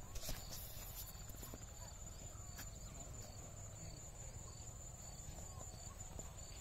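Faint insect chorus of crickets: a steady high trill, with a short chirp repeating about twice a second, over a low wind rumble.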